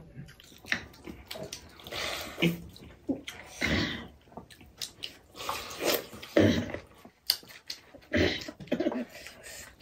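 Pakhala, rice soaked in water, being eaten by hand: wet squelching and splashing as fingers squeeze and scoop the rice in steel bowls of water, with irregular slurping mouth sounds.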